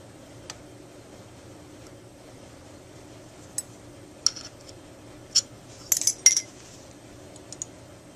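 Sharp metal clicks and clinks of soft-jaw pliers on a metal tenor saxophone mouthpiece as its warped tip is bent back into shape: scattered single taps, with a quick cluster of several about six seconds in, over a faint steady hum.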